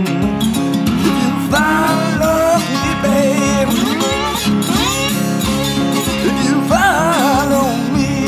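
Weissenborn Hawaiian lap steel guitar played with a slide in an acoustic blues instrumental passage: melody notes glide up and down in pitch over a steady, evenly pulsing bass.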